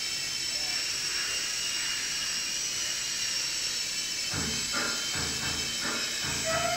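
Blade BO-105 CB CX micro coaxial RC helicopter hovering and flying, its small electric motors and rotors giving a steady high-pitched whine. About two-thirds of the way in, strummed guitar music starts up over it in a regular rhythm.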